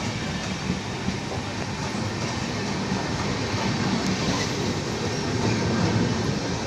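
Coaches of the Manduadih–Patna Jan Shatabdi Express rolling slowly past on the rails, a steady rumble of wheels on track.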